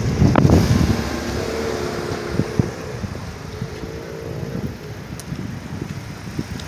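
Street traffic: a motor vehicle running close by, with wind buffeting the microphone in the first second.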